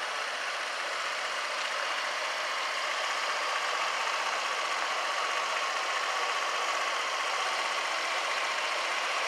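Honda PCX125 scooter's single-cylinder four-stroke engine idling steadily.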